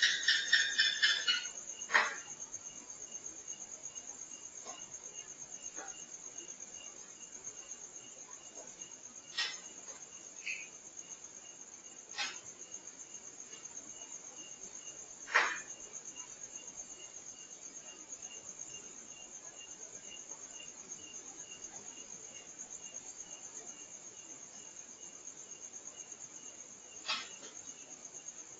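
Night insect chorus: crickets trilling steadily in a high pitch, with a second insect pulsing more faintly below. A brief rapid chattering burst comes at the very start, and sharp isolated knocks sound every few seconds, the loudest about two seconds in and about halfway through.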